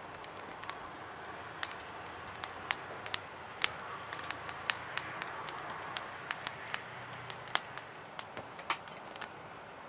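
Wood fire burning in a fire pit, crackling with irregular sharp pops over a faint steady hiss.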